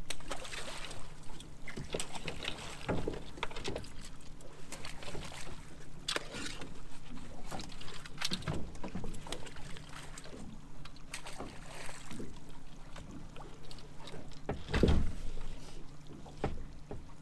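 Knocks and rattles of a mesh fishing pot being handled on a small boat's gunwale as crabs are picked out of it and thrown back, under a steady low hum. A heavier thump comes near the end as the pot is tipped down onto the rail.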